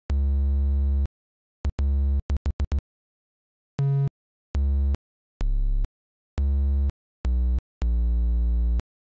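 Synthesized reference tones from a transcription program's on-screen piano keyboard, played one low note at a time to match a bass note by ear. A one-second note comes first, then a quick run of short taps, then half-second notes at changing pitches, ending on a longer held note.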